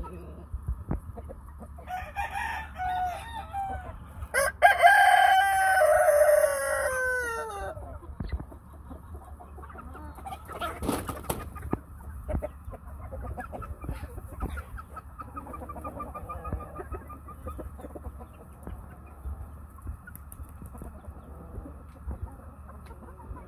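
Rooster crowing: a shorter crow about two seconds in, then a loud, long crow that falls in pitch at its end. Chickens cluck on and off for the rest of the time.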